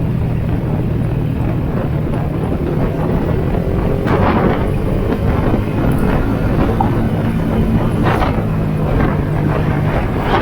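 Yamaha Sniper 150's single-cylinder four-stroke engine running steadily under way, with short surges of rushing noise about four and eight seconds in.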